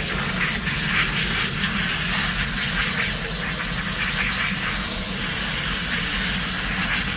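Garden hose spraying water, a steady hiss rinsing out the body cavity of a freshly gutted fish, over a steady low rumble.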